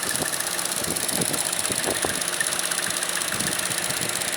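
Opel Astra J GTC with the engine running and a faint high squeak over it. The owner hears this squeak when the warm car creeps slowly forward or backward, and its cause is unknown; he rules out the crankshaft seal, which is dry.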